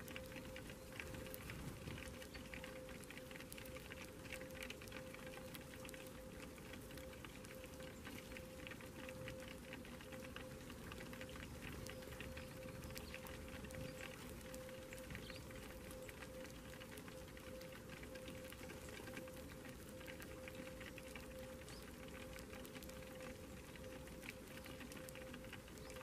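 A flock of Eurasian tree sparrows pecking seed off a plastic feeding tray: a rapid, irregular patter of small beak taps and clicks, with a faint steady hum underneath.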